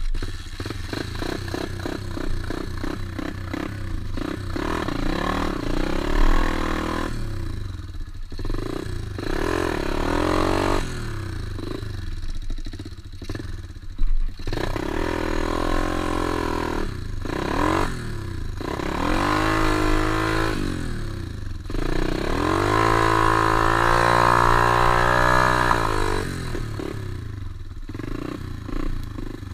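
Pit bike engine revving up and down over and over, its pitch rising and falling with the throttle, with one longer high-revving stretch about three-quarters of the way through.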